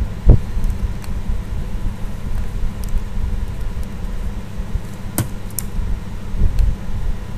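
A dull thump just after the start, then a couple of sharp computer keystroke and mouse clicks about five seconds in, over a steady low rumble of background noise.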